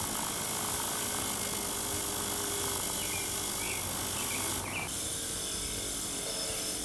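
Black Bull 6-inch bench grinder running, its wire wheel scouring rust off a steel Stillson pipe wrench pressed against it: a steady whir with a scratchy rasp. The texture shifts a little before the end as the wrench is moved to a new spot on the wheel.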